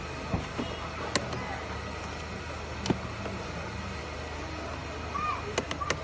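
Sharp, isolated plastic clicks and taps as a screwdriver and fingers work the interior door trim of a BMW X3 (F25): a few spread out, then two in quick succession near the end. Under them runs a steady low hum.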